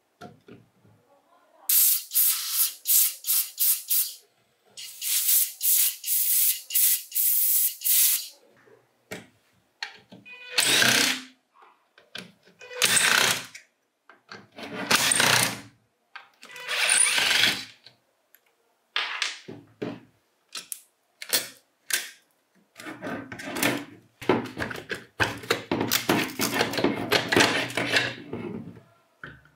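Hand and power tool work: a run of quick, high-pitched scraping strokes, then separate bursts of a second or so, and a longer, fuller spell near the end.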